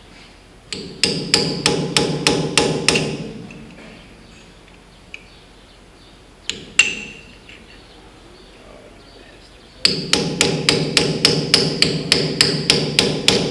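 Hand hammer striking the steel rod-end eye of a loader bucket's roll-out cylinder, with sharp ringing metal-on-metal blows about four a second. There is a run of about ten blows, two single blows mid-way, then a longer run of about fifteen near the end. The blows are working at a chewed-up snap ring in the cylinder eye.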